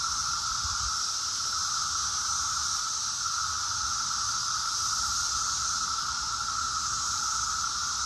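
Dense chorus of Brood X periodical cicadas, a loud, steady, unbroken drone with a high hiss above it.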